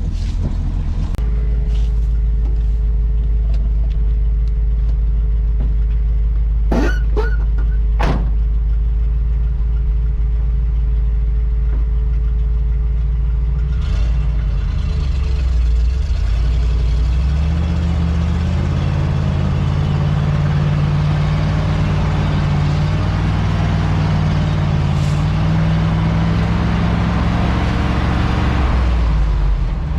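Grain truck's engine idling, with a few sharp clicks or knocks about seven to eight seconds in. About halfway through it revs up and pulls under load, the engine note shifting and growing louder.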